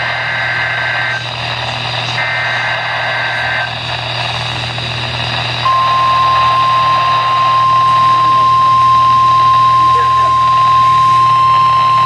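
NOAA Weather Radio Emergency Alert System broadcast from a Midland weather radio's speaker: two harsh warbling bursts of the SAME digital header data, each about a second and a half long. About five and a half seconds in, the steady 1050 Hz warning alarm tone starts and holds, announcing a Special Marine Warning.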